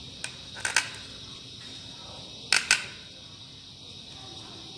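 Wooden parts of a handmade pallet-wood robot arm clacking against each other as its joints are moved by hand. There are a few short clacks in the first second and a louder pair about two and a half seconds in.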